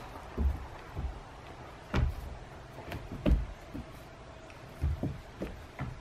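Irregular dull thumps and knocks of wolfdogs' paws on a plywood doghouse roof as they play and jostle, about seven in all, the loudest about two and three and a half seconds in.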